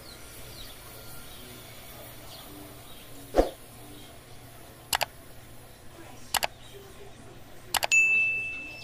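Subscribe-button animation sound effects: a soft pop, then three sharp mouse clicks about a second and a half apart, the last followed by a high bell ding that fades out. Faint outdoor background underneath.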